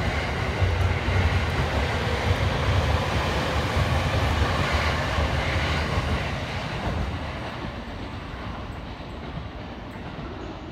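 An electric commuter train runs along the track beside the platform close by, with a low rumble and a steady running noise from wheels and motors. The noise fades from about seven seconds in as the train clears, leaving the quieter sound of a second train approaching.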